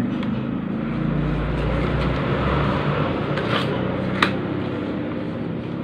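Steady low rumble of a motor vehicle engine running, swelling a little between one and three seconds in. About four seconds in there is a sharp click from a paper product box being handled.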